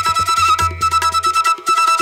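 Background music: a held high melody line over a fast, steady beat and a low bass.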